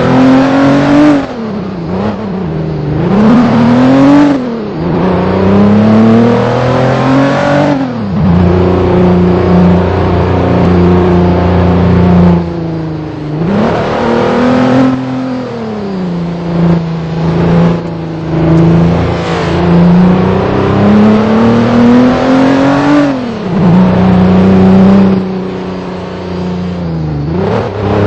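Vehicle engine under way while driving offroad. Its pitch climbs steadily under throttle, then falls back sharply, about six times over.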